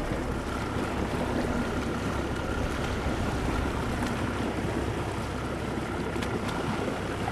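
Waterside ambience: a steady low rumble of wind on the microphone mixed with boat engine noise from the water, with a faint steady hum and a few light clicks.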